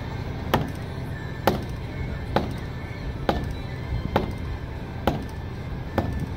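Seven sharp, evenly spaced blows, about one a second, as a mallet strikes the main-lift joint of a Copma knuckle boom crane's boom.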